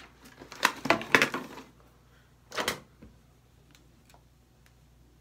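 Makeup items and containers clattering and knocking as someone rummages on a shelf, with a burst of sharp clacks in the first second and a half and one louder knock near three seconds in, then only faint ticks.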